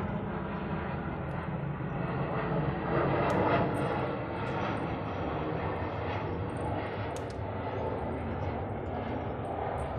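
A steady engine rumble that swells a little about three seconds in, with a few faint clicks over it.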